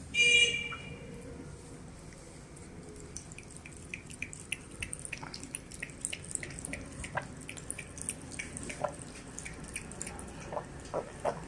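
Cat lapping water from a plastic bowl with its tongue: quick wet clicks at about three or four a second, with a few louder laps near the end. A brief loud ringing tone sounds right at the start.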